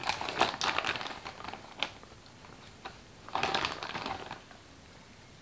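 Gloved hands rummaging in a plastic zip-lock bag of marinated meat, in two short bouts of rustling and squelching, with a sharp click between them.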